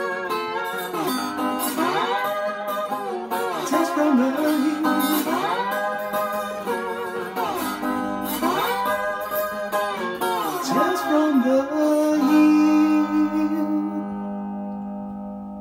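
Resonator guitar played under wordless rising-and-falling sung phrases. About twelve seconds in, a final chord is struck and left to ring out and fade.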